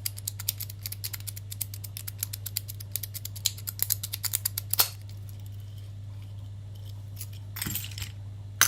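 Dimple rake pick rocked side to side in a 9-pin dimple padlock, giving rapid fine metallic clicking for about five seconds that ends in one sharper click. A short scrape and another sharp click come near the end, over a low steady hum.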